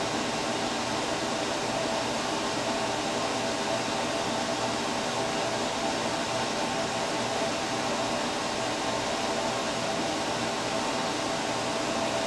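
Steady fan noise, an even whir with a faint hum under it that never changes.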